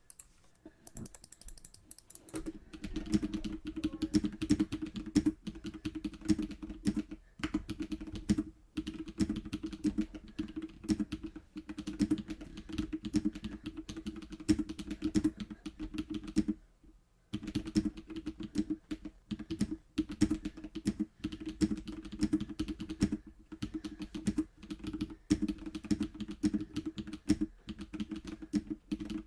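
Continuous fast typing on a GMMK Pro mechanical keyboard with lubed Glorious Panda tactile switches, a polycarbonate plate and PBT keycaps: a dense stream of deep keystroke clacks. It starts about two seconds in and breaks off briefly twice.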